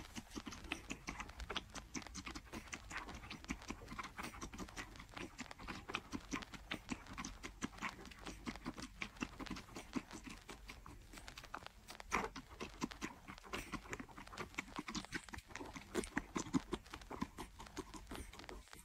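Sphynx kitten suckling milk from a baby bottle: a run of quick, irregular wet smacking and sucking clicks.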